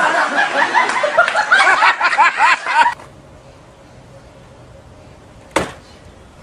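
Loud, rapid laughter that cuts off abruptly about three seconds in, then a single sharp whack near the end as a hand strikes a wooden board.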